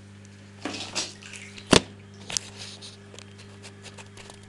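Steady low hum of a small submersible water pump running underwater, with camera-handling rustles and one sharp knock about a second and a half in, then a few lighter clicks as the camera is set in place.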